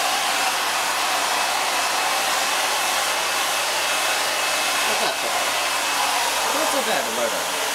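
Handheld hair dryer running steadily, blowing warm air over a small wet dog's coat: an even rushing whoosh with a faint high whine.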